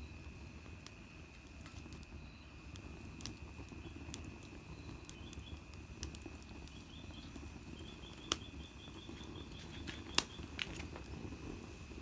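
Small wood fire in a compact fire-pit stand crackling, with scattered sharp pops, two louder ones about eight and ten seconds in.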